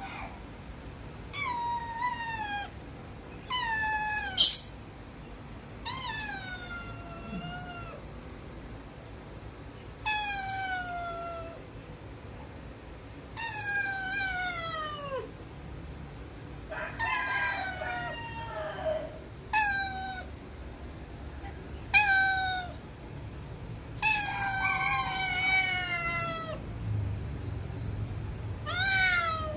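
Domestic cats meowing over and over, begging for food: a dozen or so drawn-out meows, each falling in pitch, a few seconds apart. A sharp click about four and a half seconds in.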